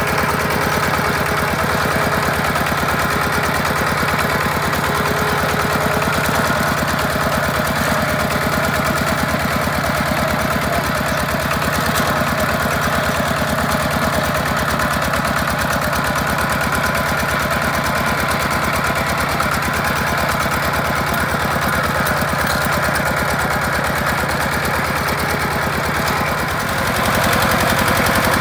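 Kubota two-wheel walking tractor's single-cylinder diesel engine running steadily under load, with a rapid, even beat of firing pulses. The note shifts slightly and gets a little louder near the end.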